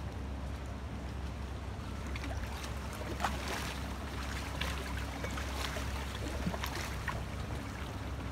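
Lake water splashing and sloshing around a man wading and reaching down into the water, with a run of small splashes from about two to seven seconds in, over a steady low rumble.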